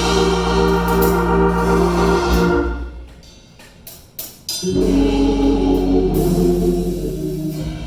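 Gospel choir singing with instruments and drums, with a short break a few seconds in before the music comes back in.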